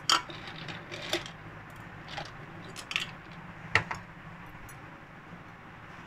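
Ice cubes dropped one at a time into a stainless steel mixer-grinder jar holding mango and milk: about five sharp clinks, roughly a second apart.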